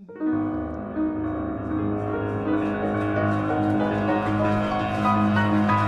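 Instrumental music on a keyboard: sustained chords over a held low bass that start suddenly, with higher notes added toward the end.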